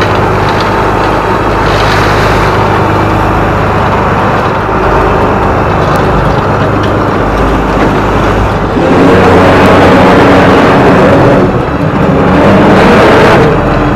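Small fishing boat's engine running steadily under way, with water rushing past the hull. It grows louder for a couple of seconds about nine seconds in, and again near the end.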